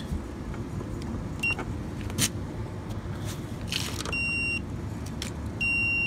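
Digital multimeter beeping: one short beep, a half-second beep about four seconds in, and a longer beep of over a second near the end, all at the same high pitch. Under the beeps there are a few clicks and taps from handling the test leads and a steady low background rumble.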